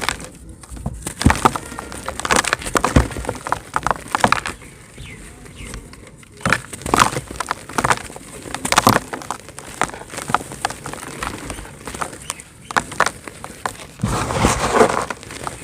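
Dry cement chunks being crumbled and crushed: a run of irregular sharp cracks and crunches, with a denser stretch of crumbling near the end.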